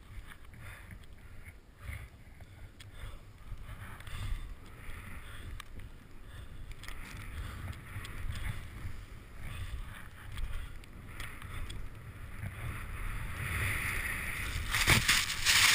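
Wind buffeting a helmet-mounted camera and the hiss of snow as the rider descends through deep powder. The hiss builds through the run and grows loudest near the end, with a brief loud rush of snow.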